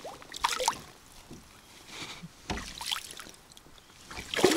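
Lake water sloshing and splashing at the side of a kayak as a bass is handled and let go at the surface, with a sudden thump about two and a half seconds in. Laughing starts near the end.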